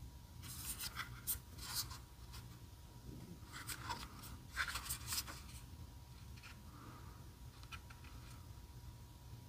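Fingers rubbing and scraping on the small plastic casing of an Amazon Echo Flex smart speaker as it is turned over in the hands. The result is faint, scattered scratchy handling noises in two short clusters.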